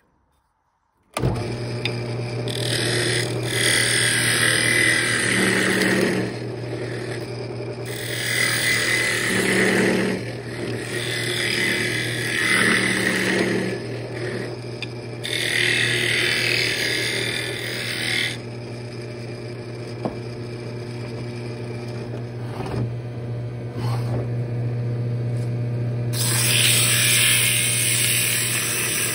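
Wood lathe motor humming steadily as it spins a wooden lid, starting about a second in, with a turning tool cutting the spinning knob in about five separate passes of a few seconds each, each a bright rushing, scraping burst over the hum.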